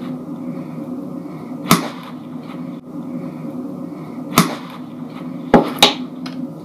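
Spoon knocking sharply against a mixing bowl four times while stirring homemade play dough, over a steady low background hum.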